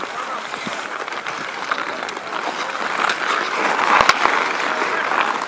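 Ice hockey skate blades scraping over outdoor pond ice as players skate close by. The scraping swells about three seconds in, and just after four seconds come two sharp clacks of sticks and puck.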